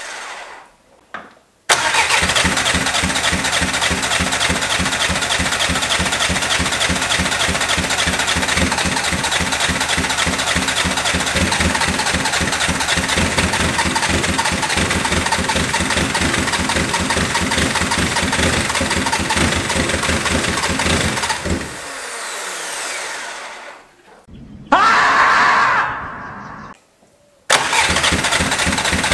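Freshly rebuilt 1.9 TDI PD four-cylinder turbodiesel bursting into life about two seconds in and running with a fast, even diesel clatter. About three-quarters of the way through it winds down and stops. A short burst with a rising whine follows, and the engine is running again near the end.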